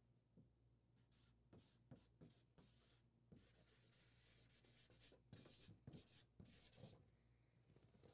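Near silence, with faint short scratching strokes of someone writing on a large white card.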